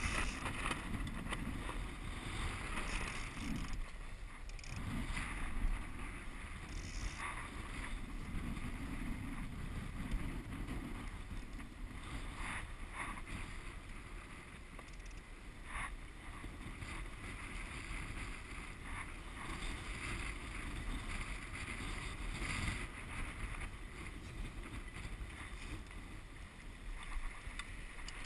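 Water rushing and splashing along the hull of a small Walker Bay 10 sailing dinghy under way, with a steady rumble of wind on the microphone and a few brief sharper splashes.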